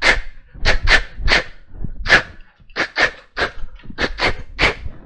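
A dog yapping: about a dozen short, sharp barks in quick, uneven succession.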